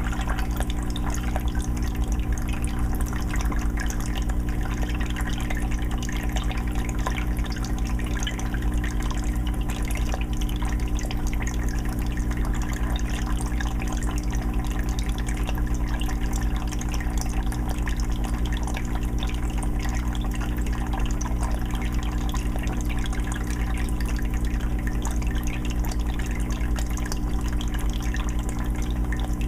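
Aquarium filter running on a 20-gallon fish tank: water steadily trickling and dripping back into the tank, over a constant low hum.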